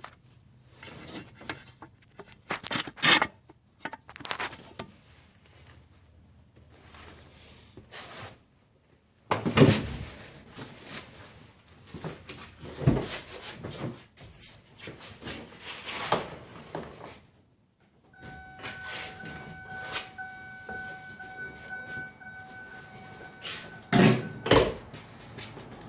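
Scattered knocks, clunks and handling noises from work around a car, with a steady electronic tone sounding for about six seconds in the last third.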